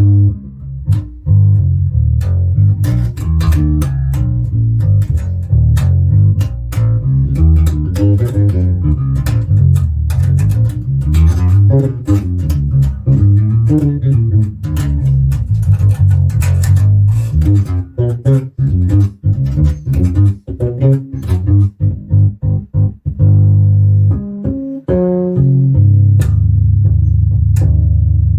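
Ibanez Mikro short-scale electric bass being played in an improvised groove: a busy line of plucked notes, turning to short choppy notes about two-thirds through, then longer held low notes near the end.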